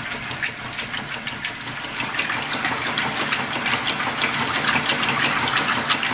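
Top-loading washing machine agitating a load of sheets in water: the motor runs with a low hum while the water sloshes and splashes, growing louder about two seconds in.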